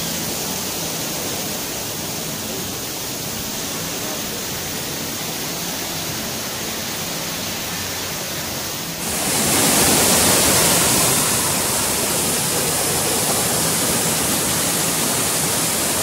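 Waterfall tumbling over boulders: a steady rush of falling water, which grows louder and brighter about nine seconds in.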